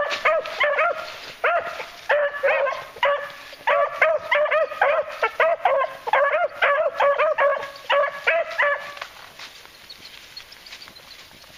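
Beagle hounds giving tongue while trailing with noses to the ground: rapid runs of short, high-pitched yelps, several a second. The hounds are on a scent line. The yelping stops about nine seconds in.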